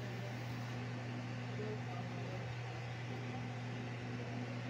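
Steady low hum with an even hiss: room tone, with no distinct event.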